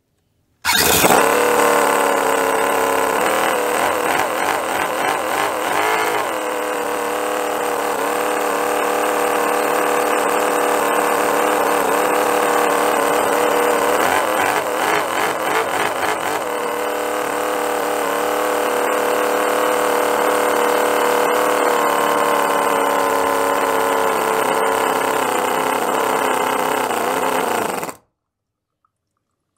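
Cison V8 model engine, a miniature four-stroke V8, running at a high-pitched fast idle. It starts abruptly about a second in, is revved briefly as the throttle is worked a few seconds in and again about halfway through, and stops shortly before the end.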